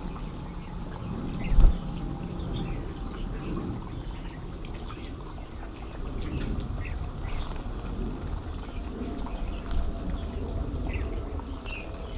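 Red-whiskered bulbuls bathing in a shallow pond, splashing water, with short high bird chirps scattered throughout. A low rumble runs underneath, and a single loud low thump comes about a second and a half in.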